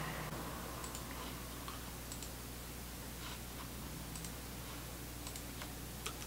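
Laptop keys being typed and clicked in sparse, irregular taps over a steady low hum.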